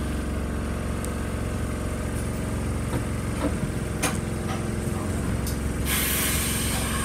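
Inside the cab of a stationary RETRAM streetcar: the tram's equipment hums steadily under passing road traffic. There are a few sharp clicks in the middle, and a hiss starts about six seconds in and keeps going.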